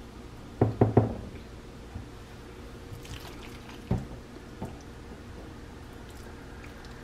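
A silicone spatula knocking against a bowl and baking dish while thick chicken pot pie filling is scooped and dropped into a pie-crust-lined dish. There are a few quick knocks about a second in, another near four seconds and a lighter one just after, with soft wet sounds from the filling.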